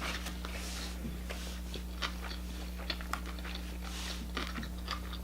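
Close-miked chewing of a shrimp sushi roll with cucumber and avocado: wet mouth smacks and small sharp clicks scattered throughout. A steady low hum sits underneath.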